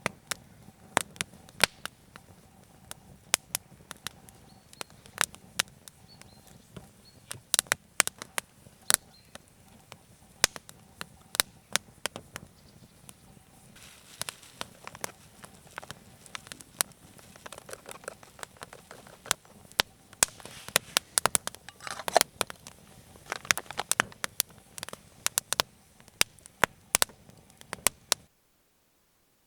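Wood fire crackling, with frequent sharp, irregular pops and snaps over a low hiss of burning. The pops come thicker in a couple of stretches, and the sound stops abruptly near the end.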